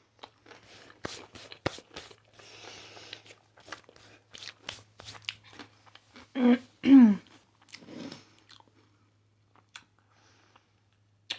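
Close-up crunching and chewing of a crispy hot Cheeto-coated fried pickle, many sharp crackles in quick succession. About six and a half seconds in come two short, loud voice sounds, the second falling in pitch, before the chewing fades.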